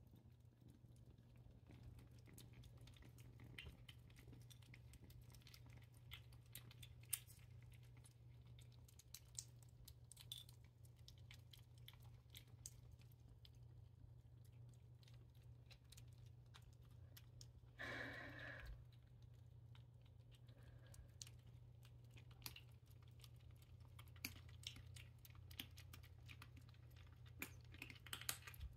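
Kittens eating wet cat food: faint chewing, with many small irregular clicks of mouths and teeth over a low steady hum. A brief louder sound about two-thirds of the way through.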